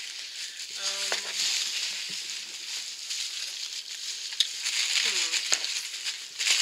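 Packing material rustling and crinkling as hands rummage through a box, with a few light clicks.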